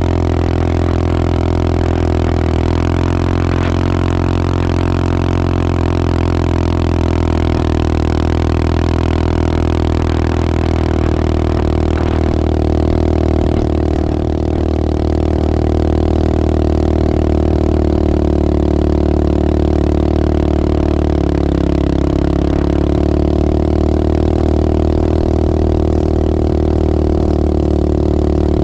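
Engine of the vehicle towing a snow tube, running steadily with a low drone whose pitch shifts slightly about halfway through and again later.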